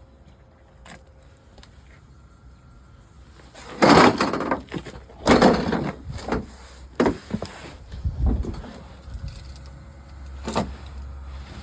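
Handling noise: a handful of loud knocks and scraping clatters, the first about four seconds in after a quiet stretch, with a low hum underneath.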